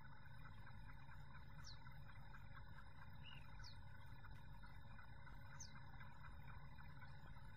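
Faint desert ambience: a low steady rumble of breeze on the microphone, with a bird repeating a short, high, falling whistle about every two seconds.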